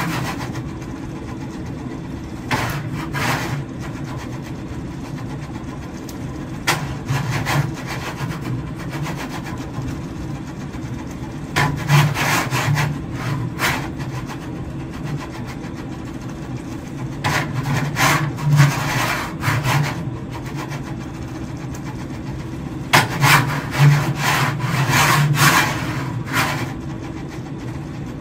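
Motor-driven cart of a double inverted pendulum making balancing corrections on its linear rail: a steady low hum with five bursts of rasping, rubbing noise, each one to three seconds long, as the cart shifts back and forth to hold both links upright.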